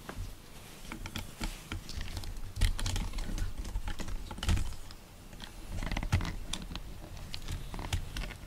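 A cat moving and rubbing right up against the camera: irregular soft clicks and rustles of fur and handling on the microphone, with low bumps, busiest in the middle.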